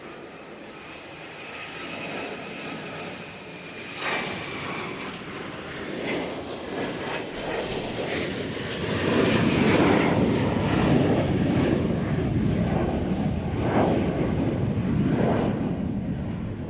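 Fixed-wing aircraft engine noise growing steadily louder over about nine seconds, with a faint high whine that falls slightly in pitch, then staying loud and easing a little near the end as the aircraft passes close.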